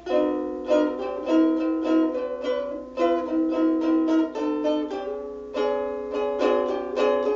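Ukulele playing an instrumental passage of plucked notes in a steady rhythm, with a short pause about five seconds in.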